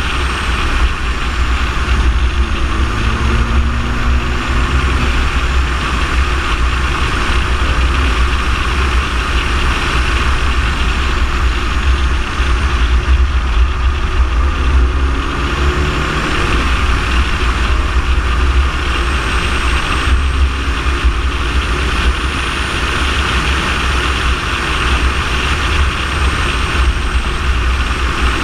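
Driving noise from a car-mounted camera set low on a moving car: heavy wind rumble on the microphone over steady tyre and road hiss, with a faint engine note rising and falling now and then.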